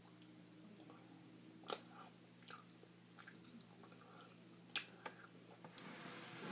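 Chewing a soft gummy jelly slug candy: faint wet mouth clicks and smacks, two of them louder, over a steady low hum. A hiss builds near the end.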